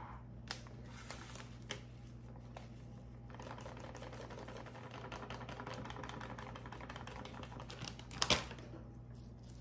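Crumbled cotija cheese poured from its plastic bag into a measuring cup: a fast patter of small ticks, with a louder knock about eight seconds in.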